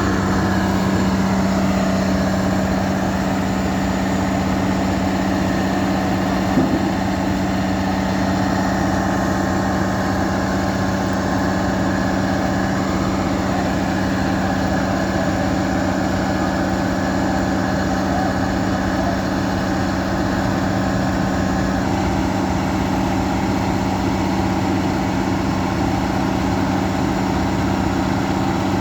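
Combine harvester's diesel engine running steadily, a loud drone with a strong low hum, with a single brief knock about six and a half seconds in. The higher part of the sound drops back slightly a little after twenty seconds.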